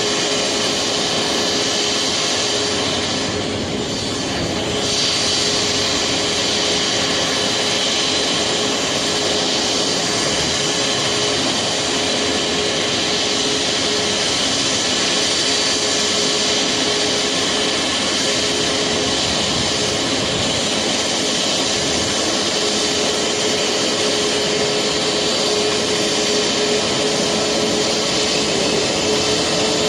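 Boeing 737 MAX's CFM LEAP-1B turbofan engines running at taxi power: a steady rushing whine with a held tone, which dips briefly about four seconds in and rises a little near the end.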